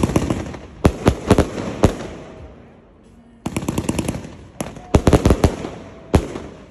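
Clobbering Time firework cake firing: rapid volleys of sharp bangs and cracks, close together like machine-gun fire. There are two flurries, with a lull of about half a second around three seconds in.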